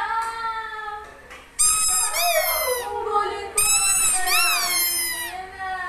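Siberian husky howling in drawn-out, wavering calls, each swooping up and down in pitch, about three in a row with short breaks between them.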